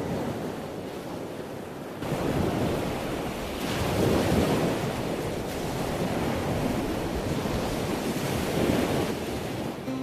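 Ocean surf: waves breaking and washing in, the noise swelling and easing every few seconds.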